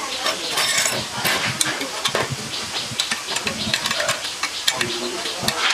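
Open-end spanner clicking and scraping against steel hex nuts as bolts are tightened: a rapid, irregular run of small metal clicks.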